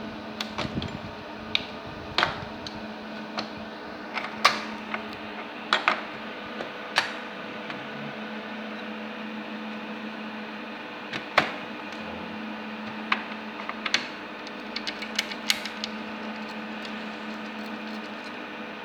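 Irregular sharp clicks and taps of hard metal and plastic parts being handled and fitted, over a steady electrical hum.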